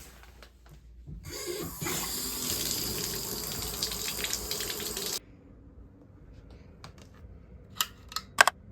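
Running water for about four seconds, starting and cutting off suddenly, followed by a few sharp clicks near the end.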